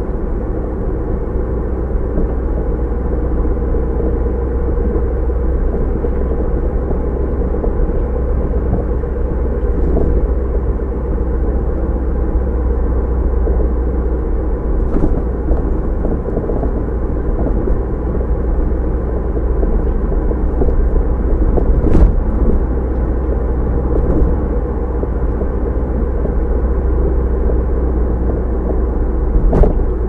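Car driving at a steady pace: a continuous low engine and road rumble with a dull, muffled top. A few sharp clicks or knocks cut through it, the strongest about two-thirds of the way in and another near the end.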